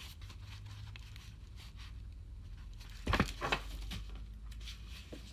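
Paper rustling as a picture book's pages are handled: a few short rustles about three seconds in, over a faint steady low hum.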